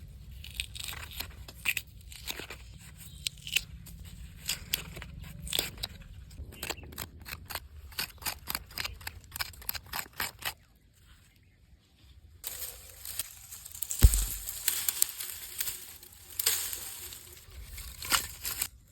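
A quick run of crisp clicks and crunching, like food being cut or torn by hand. After a short pause comes a stretch of steady hiss-like noise with one heavy thump partway through.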